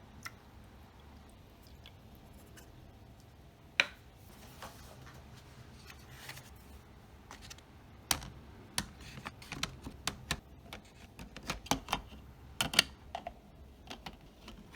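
Light clicks and taps from small items being handled while food is prepared: one sharp click about four seconds in, then a quick, irregular run of clicks and taps in the second half.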